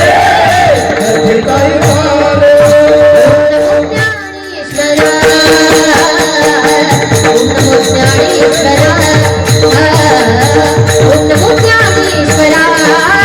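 Marathi kirtan devotional music: harmonium notes held under singing voices, with a steady beat of hand drum and small hand cymbals. The music drops out briefly about four seconds in, then resumes.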